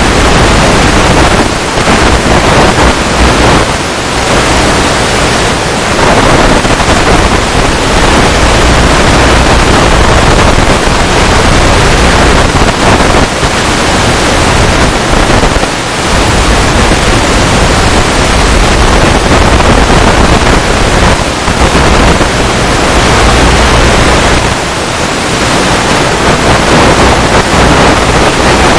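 Loud, steady static hiss from the analog FPV video receiver's audio channel, recorded by the headset, dipping briefly a few times. No motor or propeller tone comes through it.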